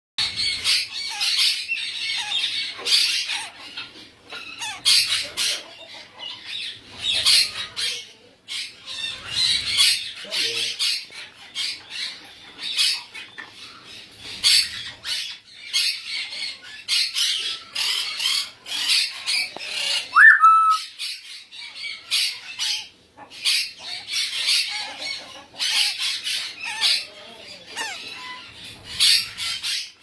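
Baby African grey parrots squawking: harsh, scratchy calls repeated over and over, with one short whistled note about twenty seconds in.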